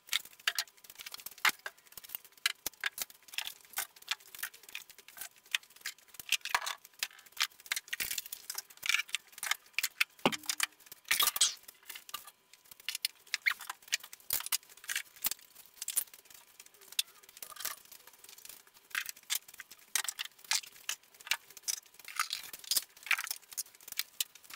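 Constant irregular clatter of tools and wooden holders being lifted off a French cleat wall and put down: many quick knocks, clicks and rattles of wood and metal.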